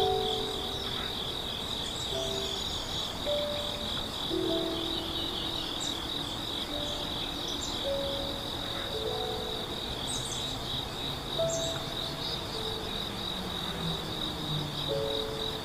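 Grass insects trilling continuously in a steady, fast-pulsing high chorus. Beneath it, soft background music of held low notes changes pitch every second or so.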